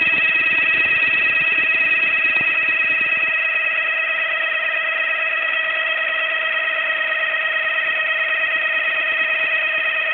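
Steady high-pitched whine with several overtones from the engine bay of a first-generation Renault Clio: the abnormal engine-bay noise the owner is trying to track down. A low rough rumble underneath it drops away about three seconds in.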